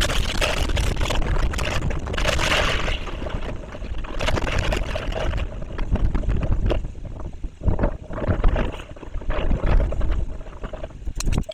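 Hurricane-force wind buffeting the nest camera's microphone, with driving rain: a heavy low rumble and rushing hiss that rise and fall in gusts, strongest in the first few seconds and more broken up later.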